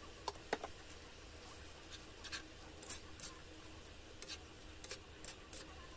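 Slotted spatula scraping and tapping against a nonstick wok as stir-fried water spinach is tossed: quiet, irregular clicks and scrapes over a faint steady hiss.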